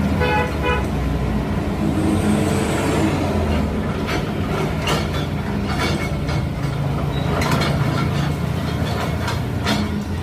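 Heavy diesel engine of an excavator running steadily, with a short horn toot at the very start and several sharp clanks from about halfway through as it breaks up the road surface.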